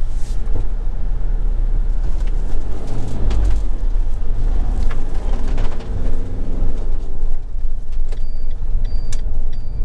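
Motorhome cab noise while driving slowly: a steady low engine and road rumble with scattered knocks and rattles, the engine note rising and falling in the middle. Near the end a short high-pitched tone starts repeating about twice a second.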